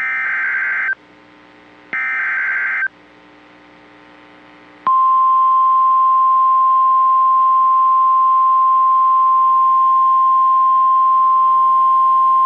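NOAA Weather Radio alert signal: the last two of the three SAME digital header bursts, each a harsh warbling data screech about a second long with a second's gap between them. About two seconds later the steady 1050 Hz warning alarm tone comes on and holds, signalling that a new warning is about to be broadcast.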